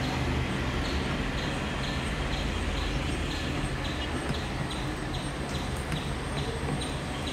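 Steady drone of a distant helicopter's rotors mixed with traffic noise, with a faint regular pulse about twice a second.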